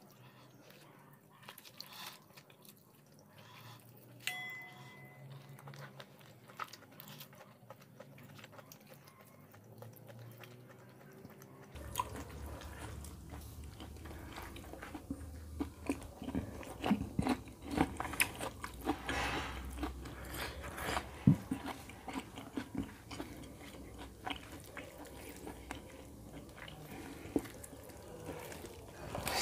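Close-miked eating of chicken curry and rice by hand: chewing and biting with scattered wet clicks and smacks. Sparse and quiet at first, busier and louder from about twelve seconds in.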